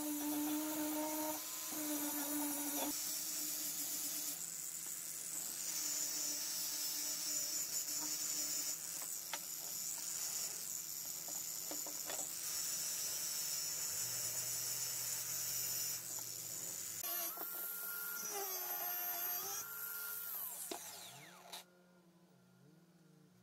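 Angle grinder with an abrasive disc grinding the black coating off an old frying pan: a steady high whine over dense grinding noise, wavering in pitch a few seconds before it stops about two seconds from the end.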